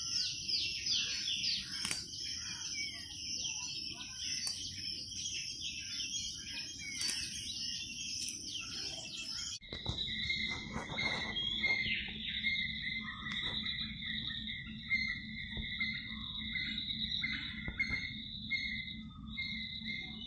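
Birds chirping busily, many short quick falling calls overlapping. About ten seconds in the sound changes abruptly to a steady high insect trill, with a few bird calls over it.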